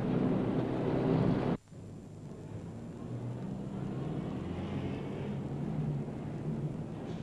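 A loud rumbling roar that cuts off abruptly about a second and a half in, followed by quieter street traffic with vehicle engines running.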